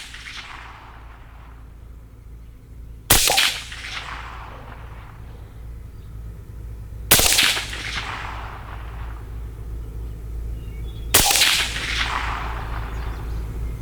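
Three suppressed shots from a CMMG Banshee 5.7x28 pistol fitted with an Energetic Armament Nix Mod 2 rimfire suppressor, about four seconds apart, each trailing off in a short echo.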